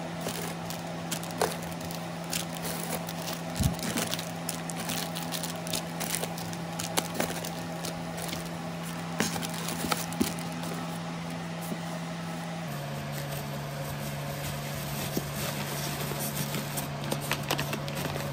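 Steady hum of an oven's ventilation fan, stepping down slightly in pitch about two-thirds of the way through. Over it, plastic packaging bags and bubble wrap crinkle and rustle as they are packed into a styrofoam box.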